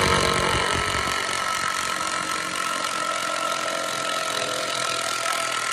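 Cordless drill running steadily under load in wood framing, with a constant motor whine.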